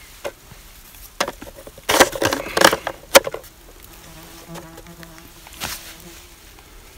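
Wooden paint box being opened by hand: a run of wooden knocks and clicks from the lid, latch and panels, loudest a couple of seconds in. In the second half a fly buzzes steadily near the microphone for about two seconds.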